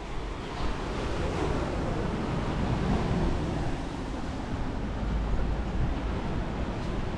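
Surf washing up on the beach, swelling about a second in and easing off, with wind rumbling on the microphone.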